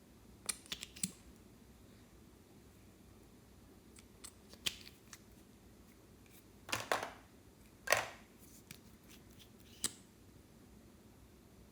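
Clear slime being handled and squeezed, giving scattered sticky clicks and small pops, with two longer squelches about two-thirds of the way through as the loudest sounds.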